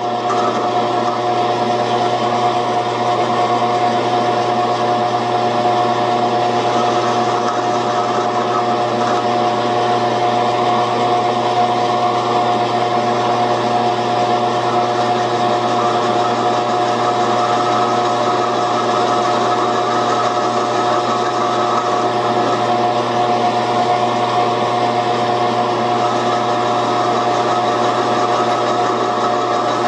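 Metal lathe running steadily, its motor and gear drive giving a constant whine, while a carbide cutter on a hand-swung cone-cutting attachment takes light cuts in the spinning aluminium round stock.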